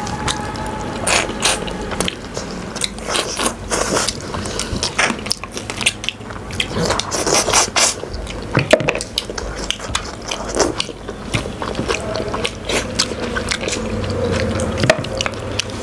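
Close-up eating of nehari on the bone: irregular crunches, clicks and scrapes of biting and chewing meat and soft bone.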